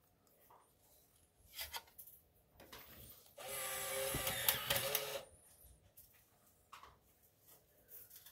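Alpine 7906R car CD player's disc mechanism loading a disc: a couple of clicks, then a motor whirring steadily for nearly two seconds, then a few faint clicks near the end.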